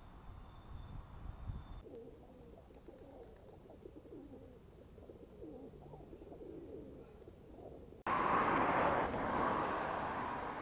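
Feral pigeons cooing: low, wavering coos repeated for several seconds. About eight seconds in, the sound cuts abruptly to a loud, steady rush of street traffic noise, the loudest part.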